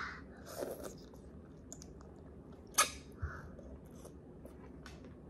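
A young child biting into and chewing food, with small crunching clicks and the sharpest crunch about three seconds in.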